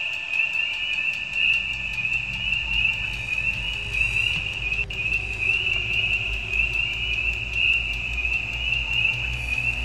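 Film soundtrack: a loud, high warbling tone held throughout, over a low rumble.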